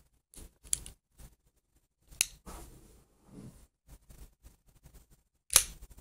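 Latama picklock switchblade being worked by hand: sharp metal clicks about a second and two seconds in as the lock is released and the blade is folded shut, then the loudest snap near the end as the spring fires the kris blade open and it locks.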